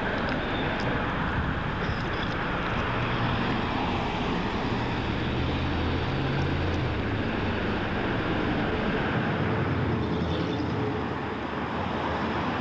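Large truck engine running steadily, a low hum under a loud, even rush of noise, its pitch shifting slightly about midway.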